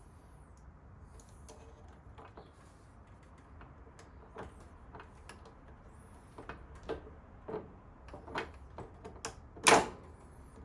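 Small metallic clicks and taps of hand tools working at a stuck rear brake-pad retaining pin on a motorcycle brake caliper. The clicks are sparse at first and come more often in the second half, with one loud sharp knock near the end.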